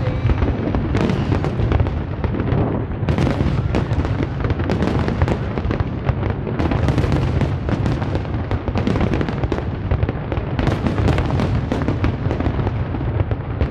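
Barrage of aerial firework shells bursting: rapid overlapping bangs over a continuous low rumble.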